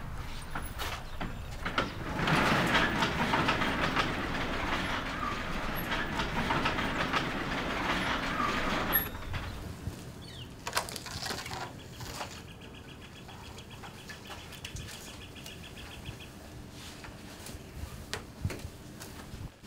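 Sectional garage door hauled up by hand, rumbling and rattling along its tracks for about seven seconds. After that come quieter rustles and light clicks as a quilt is pulled off a car.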